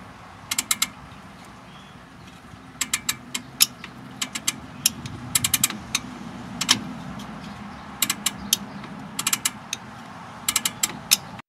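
Drum brake self-adjuster star wheel being wound out with a screwdriver, the adjuster clicking over its teeth in short runs of two to four sharp clicks, about ten runs in all.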